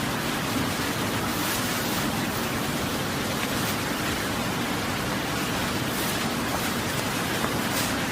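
Steady rush of water pouring through an irrigation division weir.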